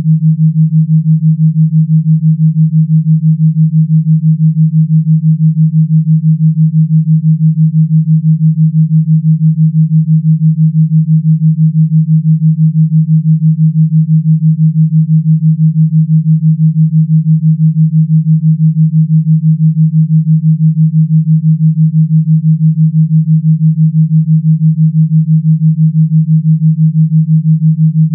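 Electronically generated pure tone: a single low, steady hum with a fast, even pulse and no music. It is presented as a 33 Hz gamma-wave tone.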